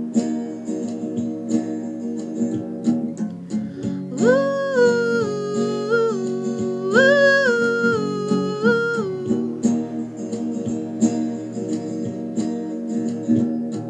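Acoustic guitar strummed steadily, with a woman's voice singing a few long, high held notes that slide between pitches from about four seconds in; after about nine and a half seconds the guitar goes on alone.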